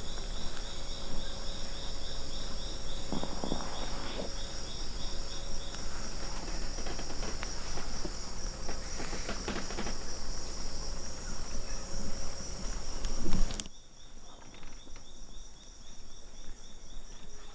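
Rainforest insect chorus: steady high-pitched buzzing layered with a chirp repeating about four or five times a second, with a few soft rustles. About thirteen seconds in it cuts off abruptly after a brief louder noise, and the chirping carries on more quietly.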